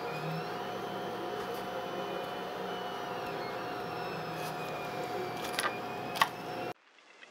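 Small plastic clicks as crimped pins are pushed into a DuPont connector housing, several in the second half with the loudest just before the end, over a steady machine hum in the room. The sound cuts off suddenly near the end.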